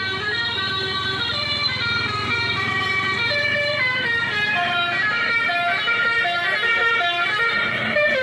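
Telolet Basuri bus-horn melody played through a Bluetooth speaker: a tune of multi-tone horn notes stepping quickly from pitch to pitch.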